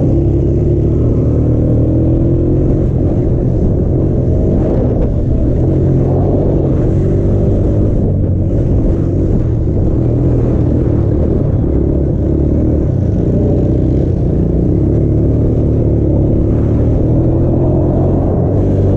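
Honda TRX90 mini quad's small engine running hard around a dirt track, its pitch rising and falling with the throttle through the turns. Heavy wind rumble on the microphone runs under it.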